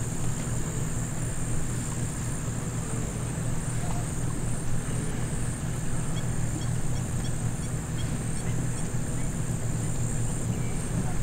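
Steady low hum of an idling vehicle engine under a constant high-pitched insect drone. A bird chirps a quick series of short notes about halfway through.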